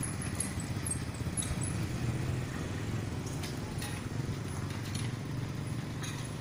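Steady low rumble of a distant motor vehicle, with a few faint high chirps in the first second or two.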